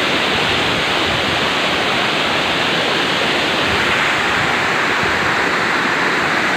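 Steady rush of a waterfall plunging into a rocky pool.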